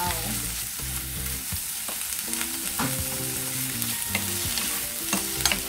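Raw chicken pieces sizzling in hot olive oil with sautéed garlic, ginger and onion, stirred with a wooden spatula that clicks now and then against the pot.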